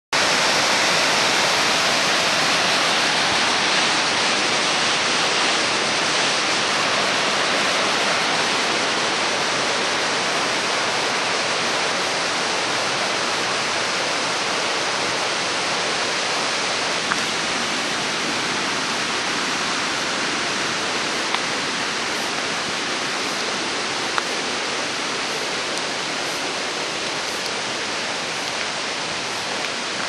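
Ryūmon Falls, a large waterfall, rushing steadily in the distance, gradually fading.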